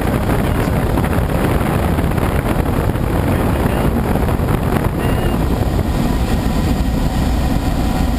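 Steady rush of airflow over a glider's canopy in flight, heard from inside the cockpit.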